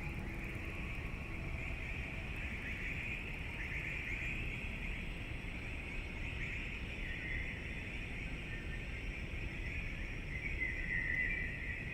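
Electronic synthesizer music in a noise-based passage: a steady rushing hiss over a low rumble, with a wavering band of high hiss and faint held tones in the first couple of seconds.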